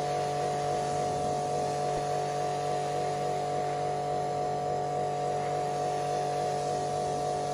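Pressure washer running steadily, a constant hum from its motor and pump under the hiss of the water jet, as it rinses citrus pre-wash off a car's paintwork.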